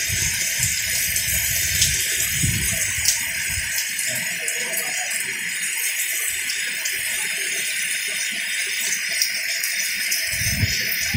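Heavy rain falling, a steady loud hiss, with gusts of low rumble in the first few seconds and again near the end.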